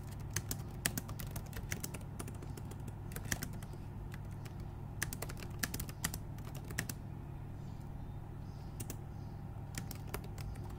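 Typing on a computer keyboard: irregular runs of keystroke clicks that thin out after about seven seconds, over a steady low hum.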